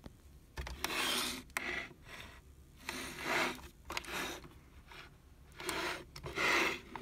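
Repeated short rasping, rubbing noises, about six in all, each lasting half a second or less, with quiet gaps between them.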